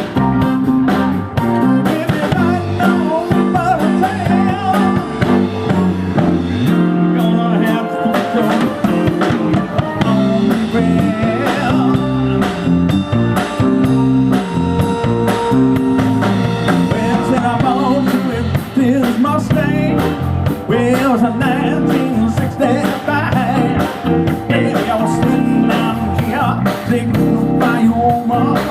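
Live rock band playing a blues-rock song: electric guitar, bass and drum kit, with a singer.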